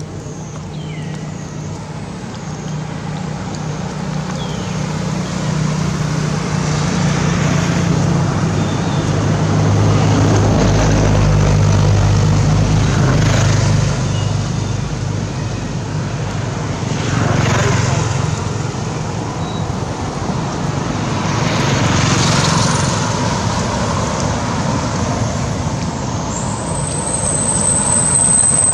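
Motor vehicles passing on a nearby road: a low engine hum swells and fades, with more passes following. A thin high tone sounds near the end.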